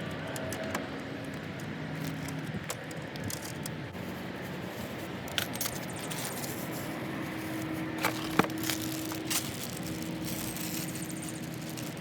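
Scattered light metallic clicks and clinks as car grille parts and hardware are handled, with a few sharper knocks about five, eight and nine seconds in, over a steady low hum.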